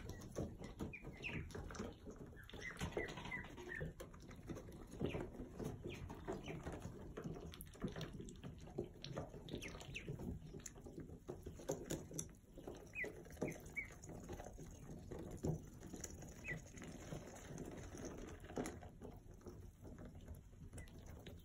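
Ducklings peeping in short high chirps that come in small runs, over soft clicking and scuffling as they peck at a sneaker and move through wood shavings.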